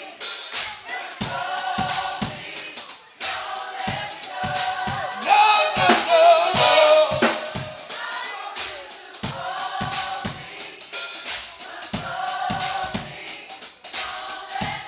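Live band playing with a drum kit keeping a steady kick-and-snare beat under singing voices; it swells loudest about five to seven seconds in, where a voice holds a wavering note.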